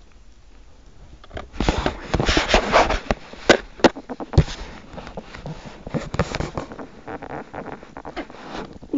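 Plastic wrapping on a DVD case crinkling, with the case clicking and knocking as it is handled. It comes in irregular bursts with sharp clicks, starting about a second and a half in.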